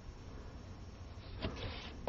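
Quiet room tone with a steady low hum and faint hiss, and one soft short tap about one and a half seconds in.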